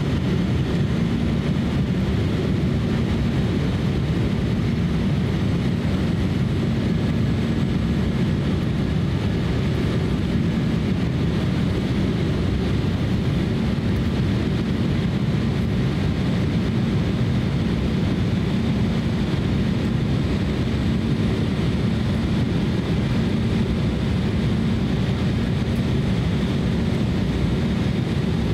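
Steady cabin noise inside a twin-turbofan Embraer E170 airliner on approach to landing: an even, low rumble of engines and airflow with a faint steady hum, unchanging throughout.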